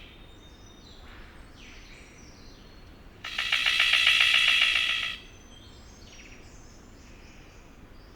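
Male golden bowerbird giving one pulsing, rattling call about two seconds long, starting about three seconds in. It is his advertising call near the bower, evidently to attract a female.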